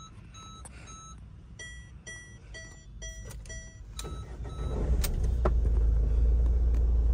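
Ford Figo's dashboard chime beeping in two short runs of repeated tones, about three a second, as the ignition is switched on; then the engine cranks and starts about four to five seconds in and settles into a steady idle rumble.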